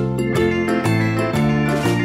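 Instrumental background music, with pitched notes changing about twice a second.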